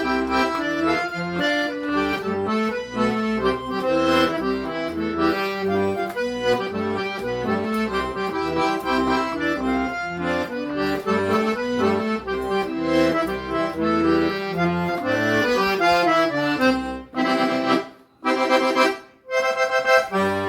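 Instrumental forró accordion solo, a running melody over bass notes with no singing. Near the end the playing breaks off briefly twice.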